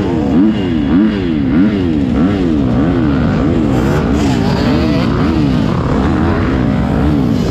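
Motocross bike engine running under way, its pitch rising and falling in an even wave about three times every two seconds as the revs swing up and down.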